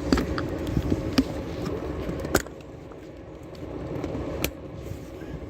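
Steady vehicle rumble with a faint constant hum, broken by four sharp clicks or knocks, the loudest about halfway through.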